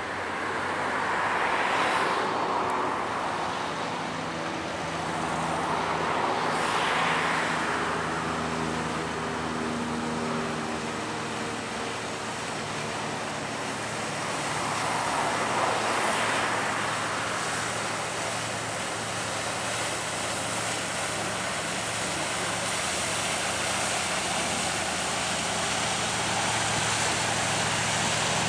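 Road traffic going by close to the microphone: three vehicles pass, each swelling and fading over a few seconds, about two seconds in, near seven seconds and around sixteen seconds. A low engine hum runs underneath throughout.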